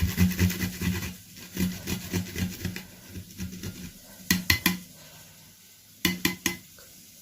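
Garlic heads being grated, skins on, against a hand grater in quick rasping strokes, followed later by two quick sets of three sharp knocks of kitchenware.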